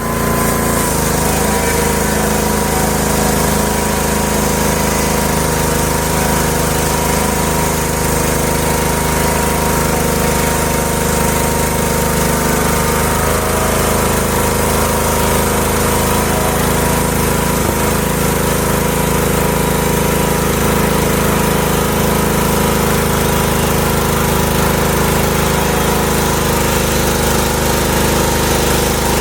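Homemade sawmill running, a steady mechanical drone that holds one pitch and level throughout.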